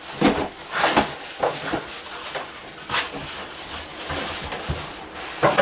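Plastic wrapping crinkling and cardboard packaging rustling as a tool is wrestled out of its box, with several sharper crackles and knocks scattered through.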